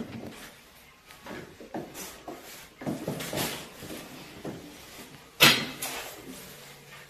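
Irregular knocks and clunks of things being handled, with one sharp, loud knock about five and a half seconds in.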